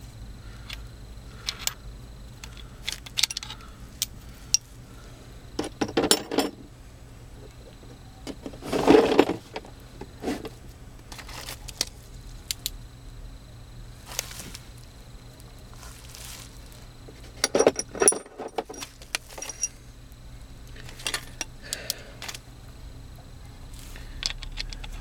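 Metal tools or plumbing parts being handled: scattered clinks and clicks, with a few louder bursts of clatter.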